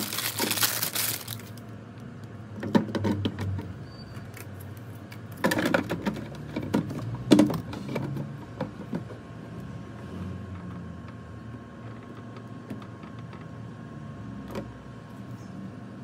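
Plastic filter packaging crinkling, then a series of plastic clicks and knocks as a Brita Maxtra+ cartridge is fitted into a plastic water filter tank and the lid is set on. The loudest knock comes about seven seconds in, and only faint handling ticks follow.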